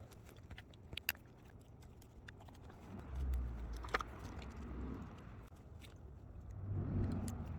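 Small sharp clicks and handling noises as a nut is fitted onto the back of a rail joint bolt, with two spells of low rumble, about three seconds in and again near the end.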